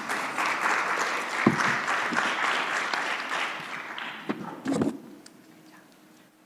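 Audience applauding, dying away after about four to five seconds, with a couple of knocks as it fades.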